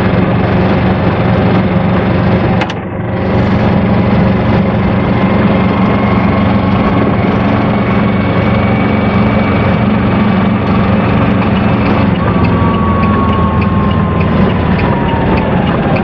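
Cabin noise of an Aixam Mega Multitruck microvan on the move: its small Kubota two-cylinder diesel runs steadily under load, with a fainter drivetrain whine above it. The noise dips briefly about three seconds in, and near the end the whine falls in pitch as the van slows.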